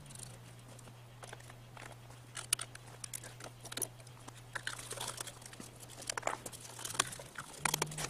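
Hands handling parts on an Onan generator beside its carburetor: scattered light clicks, taps and rubbery scrapes, busier in the second half, as a rubber boot is fitted over a component. A faint steady low hum runs underneath.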